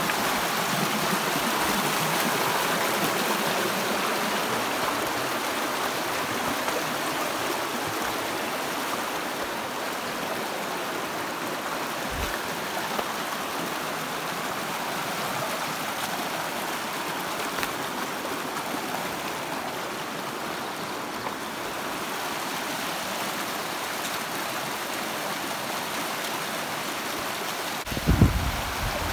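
Shallow mountain creek running fast over rocks and gravel: a steady rushing of water. Near the end come a few low thumps.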